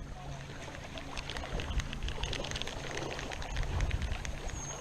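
Shallow creek water trickling and sloshing, with small irregular splashes as someone wades in the current.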